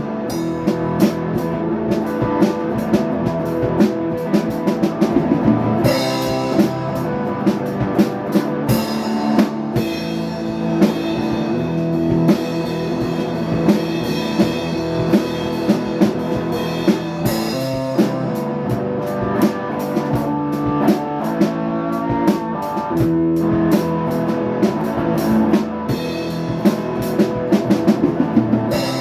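Rock music played on drum kit and guitar, with a steady beat of drum hits under sustained guitar notes.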